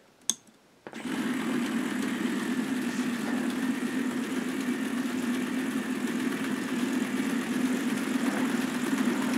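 K'nex motor switching on about a second in and running steadily, driving the gears and the chain of links up through the tower: a constant mechanical hum with plastic gear whir.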